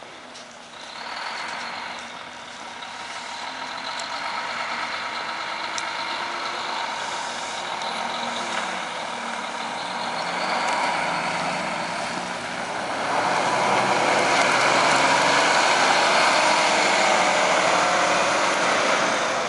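Volvo D13 diesel engine of a Prevost H3-45 motor coach, driving through an Allison B500R6 automatic transmission, pulling away from a stop and accelerating past. The engine sound builds about a second in and gets louder about two-thirds of the way through as the coach goes by and pulls away.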